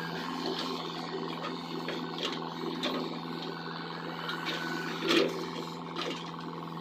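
XCMG mini excavator's diesel engine running steadily while it digs, with a few sharp knocks and clanks from the work, the loudest about five seconds in.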